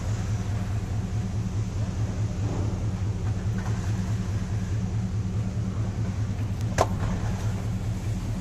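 Steady low rumble of an idling engine, with one sharp click near the end.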